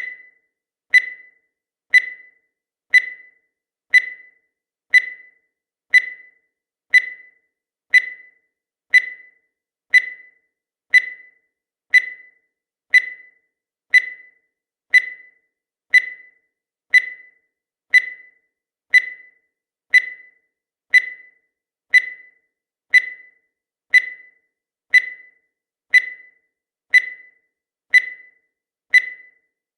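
Countdown timer sound effect: a short high tone once every second, each dying away quickly, with silence between.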